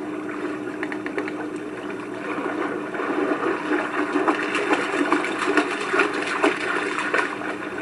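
Water splashing as a German Shepherd wades and lunges through shallow lake water, the splashes growing louder and more frequent about halfway through. A steady low hum runs underneath.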